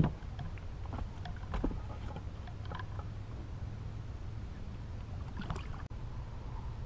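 A sharp knock at the start, then small clicks and rustles as a caught largemouth bass is handled and unhooked, over a steady low rumble.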